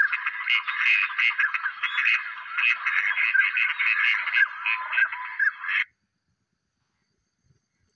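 A dense chorus of many ducks calling, overlapping short quacks and chatter, cutting off abruptly about six seconds in.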